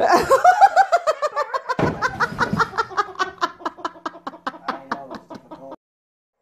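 A person laughing hard in a long run of quick laughs that slowly fall in pitch and fade, cutting off suddenly near the end. A dull thump comes about two seconds in.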